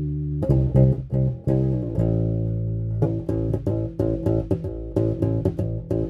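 Electric bass guitar played through a Carvin BX700 bass amp head in its tube preamp mode with the contour control off. A held note rings, then a quick cluster of plucked notes comes about half a second in and another held note follows. From about halfway on there is a steady run of plucked notes, about three a second.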